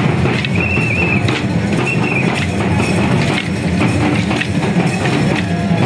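Double-headed barrel drums (dhols) beating a fast, driving rhythm. A couple of short high whistling notes sound above the drumming, about half a second in and again about two seconds in.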